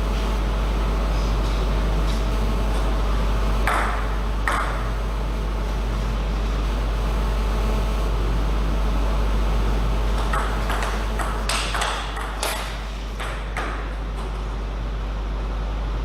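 Table tennis ball clicking off rackets and the table: two hits a little under a second apart about four seconds in, then a quick run of hits about ten to thirteen and a half seconds in. A steady low hum runs underneath.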